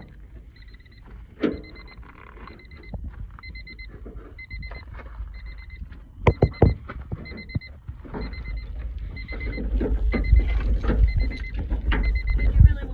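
Car warning chime beeping in a steady, even rhythm of short high beeps, nearly twice a second. A few sharp knocks come about halfway through, and low handling rumbles build near the end.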